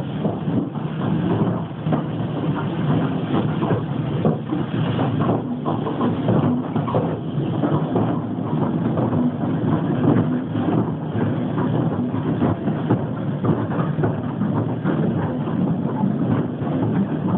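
A moving train heard from inside its carriage: a steady low rumble with a dense rattling clatter of the wheels and coach running along the track.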